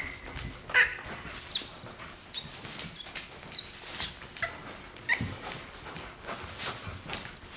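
Hoofbeats of a horse trotting on long lines over dirt arena footing, a run of uneven short knocks, with a few brief high squeaks among them.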